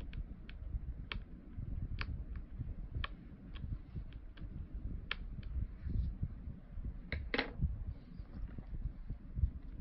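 Light, irregular clicks of a precision screwdriver and tiny screws being worked into the thin metal shield plate of an iPhone 7, over a low rumble of handling noise. A slightly longer click-scrape comes about seven seconds in.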